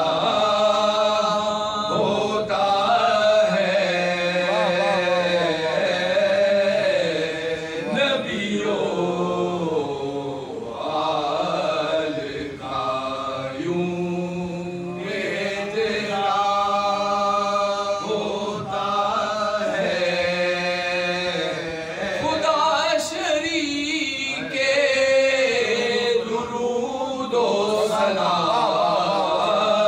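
Unaccompanied male voices chanting a salam in soz-khwani style. A lead singer carries the melody while several men join in on the held notes, in long phrases with short breaks between them.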